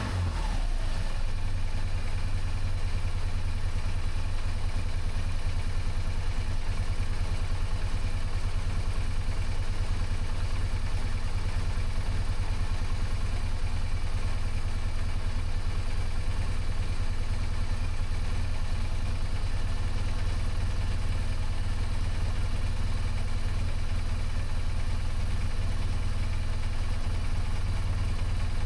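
BMW R1200GS's boxer twin engine idling steadily during a throttle body synchronization.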